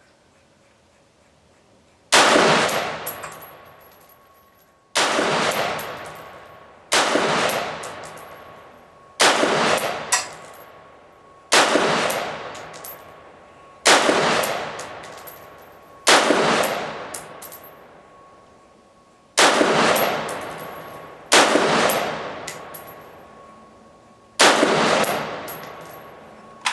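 AR-15-type rifle (a retro Colt 601-style build) firing ten deliberate semi-automatic shots, one every two to three seconds, each crack followed by a long echo fading away.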